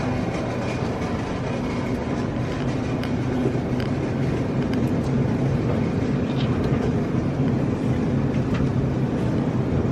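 Steady low rumble and hum of grocery-store background noise, with a few faint clicks.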